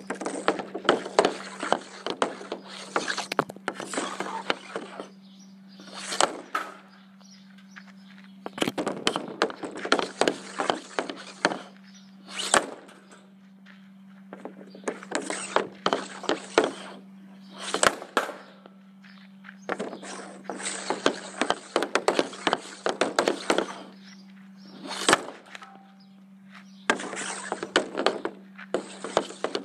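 Bauer composite hockey stick blade stickhandling a puck on a concrete pad, a quick run of clacks each time, then a single loud crack of a shot, repeated five times. A steady low hum runs underneath.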